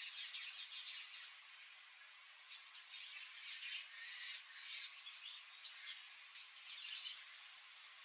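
Palm tanager calling: high, squeaky chirps in scattered runs, then a louder rapid twittering near the end.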